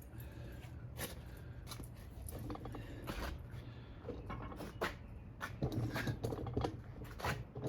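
Irregular light knocks, clicks and scrapes of hand work on a tire and wheel rim, busier in the second half.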